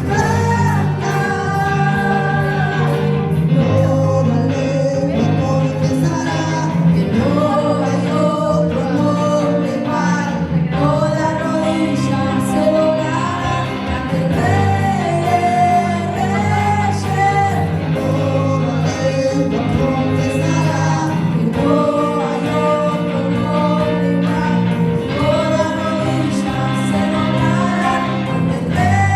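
Christian worship music: singing over a steady accompaniment with a regular beat.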